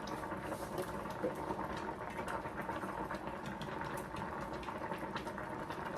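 Pot of beans boiling on the stove: steady bubbling with many small pops.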